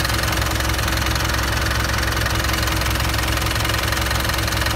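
Mitsubishi Triton's 4D56 four-cylinder common-rail turbo-diesel idling steadily with the oil filler cap off. The mechanic suspects the engine is tight and close to seizing, as little oil is thrown up at the open filler.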